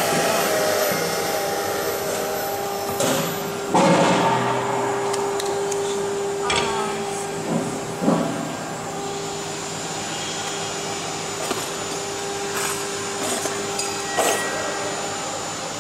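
CNC router running on MDF: the spindle gives a steady whine over a hiss. Three sharp knocks, about four, eight and fourteen seconds in, as cut MDF pieces are lifted and handled on the vacuum table.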